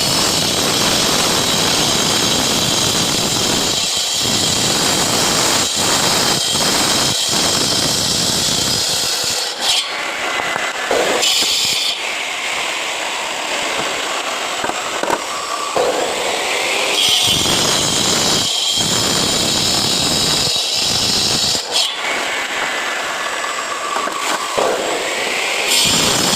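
Power cutter sawing through concrete paving blocks, with a loud, steady high whine. The tone changes several times as the blade bites into and eases out of the cut.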